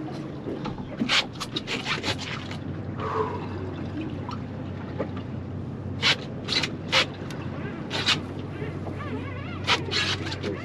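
Boat engine idling steadily under short, irregular bursts of water slapping and splashing against the hull.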